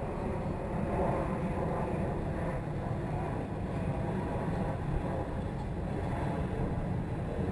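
Steady low rushing noise of a pedal-driven fishing kayak under way on a river, water along the hull and wind on the camera mount.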